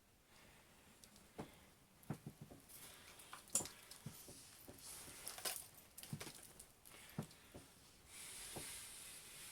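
Faint, irregular handling noise: scattered light clicks and rustles, one a little louder about three and a half seconds in.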